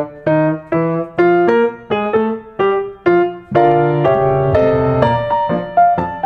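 Background piano music: a light melody of struck notes over chords, about two notes a second.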